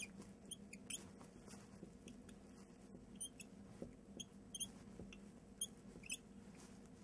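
Whiteboard marker squeaking faintly as a word is written: short high squeaks, a few a second and irregular, with gaps between strokes.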